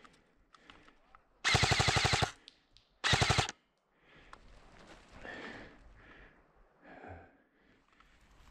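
Airsoft rifle firing two loud full-auto bursts at about twenty shots a second: a longer burst of under a second, then a short one a moment later.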